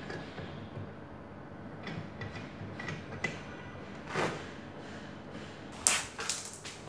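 A metal shear jig being handled on a testing machine's loading platform: scattered light clicks and knocks, a brief scrape about four seconds in, then a sharper click and a few more clicks near the end.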